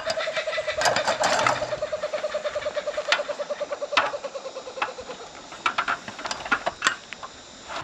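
An animal's rapid pulsing call at a steady pitch, fading out about five seconds in, with scattered sharp clicks and knocks.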